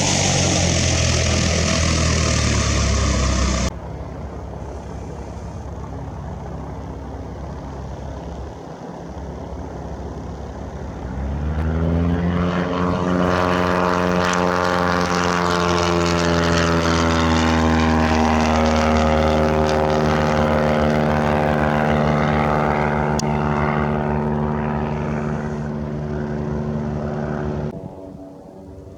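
Propeller airplane engine noise: a loud pass with the pitch falling, cut off sharply about four seconds in. After a quieter stretch, an engine drone with a strong propeller hum rises in pitch about eleven seconds in, then holds steady until it cuts off near the end.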